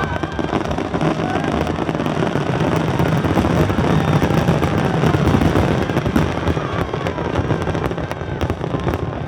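Fireworks finale barrage: many shells bursting at once in a dense, continuous run of booms and crackling, loudest about halfway through and easing off slightly near the end.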